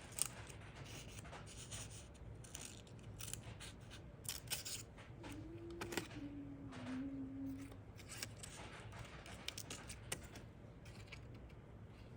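Scissors snipping through paper in a run of short, irregular cuts.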